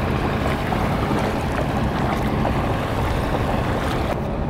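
A boat engine hums steadily under wind buffeting the microphone, with no speech.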